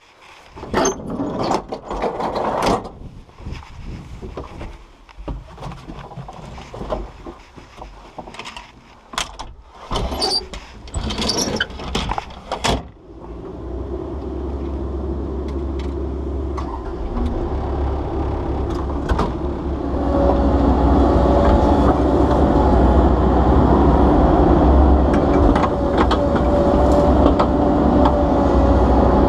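Scattered knocks and clatters, then a Komatsu excavator's diesel engine comes in about 13 seconds in as a steady low rumble. Around 20 seconds it gets louder and a steady whine joins it.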